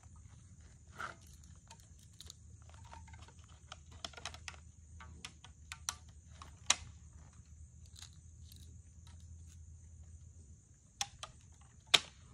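Cardboard packaging being pulled and torn off a new children's bike frame: scattered rustles and crinkles with sharp snaps, the loudest about halfway through and just before the end.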